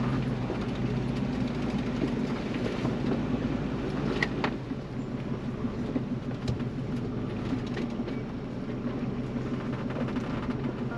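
Ford Bronco's engine running steadily at crawling speed on a rocky dirt trail, heard from inside the cabin, with a few sharp knocks and rattles as the tyres and body go over rocks.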